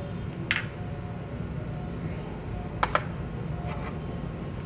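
A few light taps and clinks of small glass bowls against a glass mixing bowl as dry batter ingredients are tipped in: one about half a second in, a quick pair near the middle and a fainter one after, over a steady low background hum.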